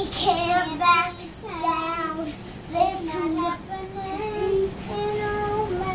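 A young girl singing a song without accompaniment, drawing out several long held notes.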